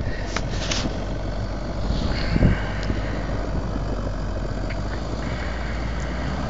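Common-rail diesel engine of a jeep on oversized tyres running steadily as it crawls forward through deep snow.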